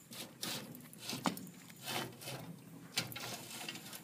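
An old rusted metal shelf on a boat's hull wall being gripped and shaken by hand, giving a few separate knocks and scrapes.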